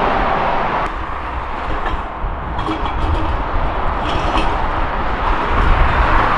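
Motorway traffic passing: a steady rush of tyres and engines with a deep rumble, swelling louder near the end.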